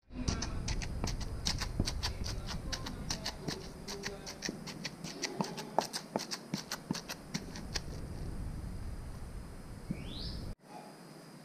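Stone pestle pounding and grinding a coarse scraped-coconut mixture in a stone mortar: a fast, irregular run of sharp knocks and gritty crunches. Near the end it cuts off abruptly to a quieter hiss.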